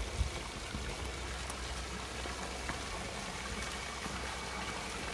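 Water from a stone lion fountain splashing steadily into its round basin.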